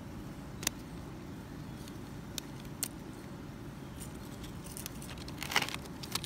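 Plastic toy horse figures and a cardboard play stable being handled: a few sharp clicks and taps, and a short rustle near the end, over a steady low background rumble.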